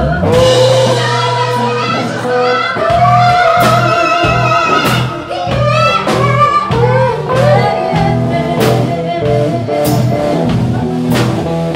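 Live band playing: a woman singing at a microphone over electric and acoustic guitars, a bass line and a drum kit with cymbals.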